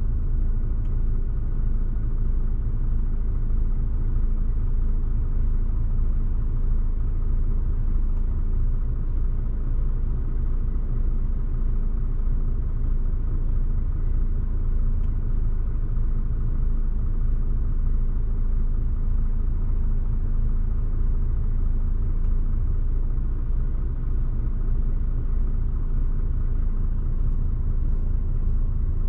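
DAF XF106 truck's six-cylinder diesel engine running steadily, a low even rumble heard inside the cab.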